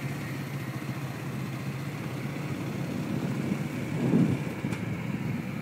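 Pickup truck engine running steadily at low revs, swelling briefly louder about four seconds in.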